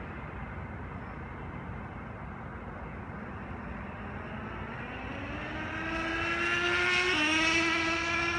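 Nitro RC car's small two-stroke glow engine running at three-quarter throttle, faint at first, then rising in pitch and growing louder as it approaches. Its pitch drops suddenly about seven seconds in as it passes, and it starts to fade near the end.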